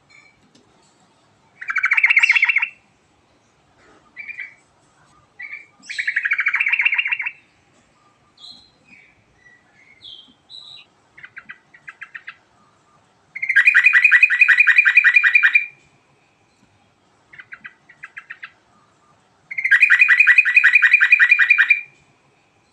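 Yellow-vented bulbul singing in long, rapid rolling trills (the 'ngerol' song). Four loud trills come at intervals, with shorter chirps and scattered notes between them.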